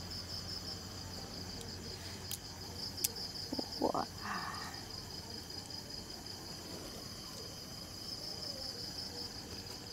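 Crickets trilling steadily at a high pitch, a continuous finely pulsing drone. About three to four seconds in, a couple of light clicks and a short rising sound stand out briefly above it.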